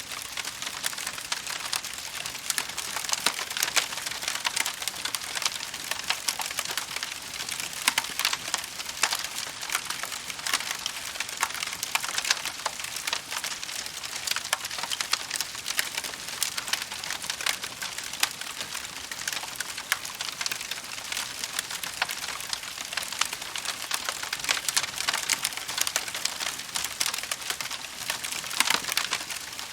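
Campfire of burning wood crackling: a steady hiss filled with many small sharp pops and snaps.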